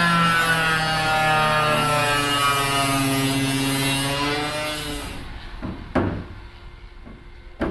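A power tool running on the sheet-metal side wall, its pitch dipping and then rising under load before it dies away about five seconds in. Two sharp knocks follow near the end.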